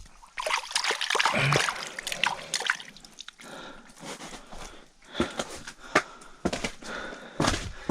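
Water sloshing and splashing in an ice-fishing hole, with drips, as a just-released northern pike goes back down; the sloshing is busiest in the first few seconds and gives way to scattered drips and ticks.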